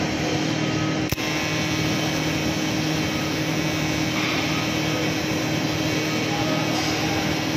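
TIG welding arc on a steel pipe root pass: a steady hiss with a low, even hum underneath, and one sharp click about a second in.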